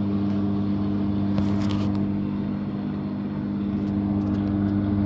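5.5 kg top-loading washing machine running with a steady motor hum, with a few faint clicks about a second and a half in.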